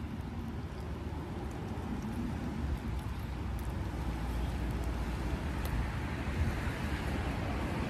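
Steady rumble of road traffic that swells over the last few seconds as a vehicle approaches, with faint chewing close by.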